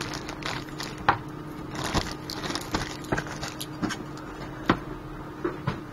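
Handling noise as a carbon-fibre quadcopter frame plate is unpacked and turned in the hands: rustling with scattered light clicks and knocks at irregular intervals.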